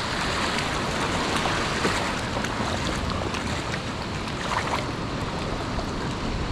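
Ocean surf washing steadily on the shore, a continuous rushing noise with some wind rumbling on the microphone.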